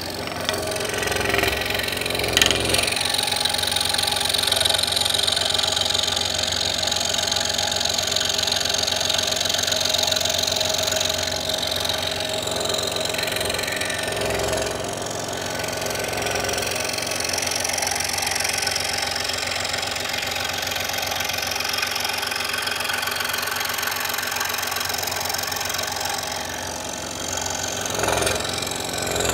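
Scroll saw running, its reciprocating blade cutting an inside cut through a thin wooden workpiece fed slowly along a drawn line; a steady machine sound with small swells in level near the start and near the end.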